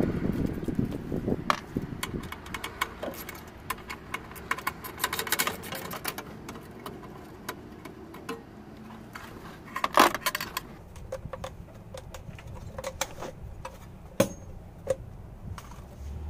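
Rapid clicks and metal clinks of a ratchet wrench and socket undoing the 10 mm bolts that hold a car's engine computer (ECU) up under the dashboard, with a louder clank about ten seconds in.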